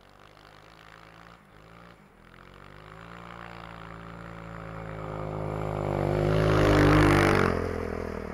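Snowbike, an enduro motorcycle on an Impersled 3000 Pro track kit, riding across snow toward the microphone: its engine is faint at first and grows steadily louder under throttle. It is loudest about seven seconds in as it passes close by, then fades as it goes on.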